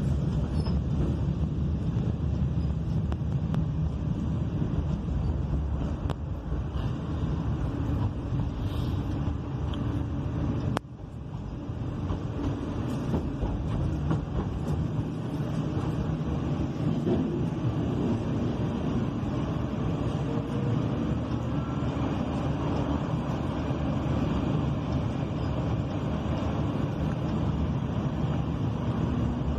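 Sheffield Supertram tram running along the track, heard from inside the car as a steady low rumble. About eleven seconds in there is a sharp click, and the noise dips suddenly, then builds back up.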